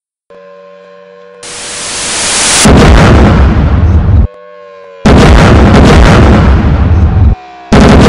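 Reactor explosion sound effects: a rising whoosh, then three loud, deep blasts, each cutting off abruptly, over a steady droning tone.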